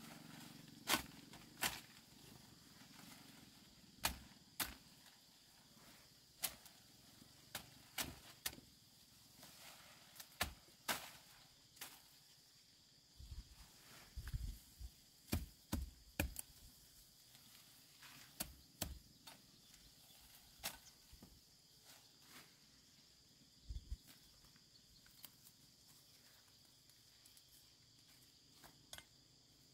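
Irregular sharp snaps and rustles of leafy shrub stems being picked by hand, every second or so, some heavier and thumpier in the middle. A steady faint high insect drone runs underneath.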